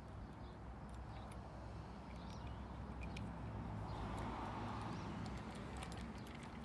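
Faint clicks and ticks of a metal hex key turning the small screws that hold a patio umbrella's crank handle to its mounting plate, over steady outdoor background noise with a bird calling a few times.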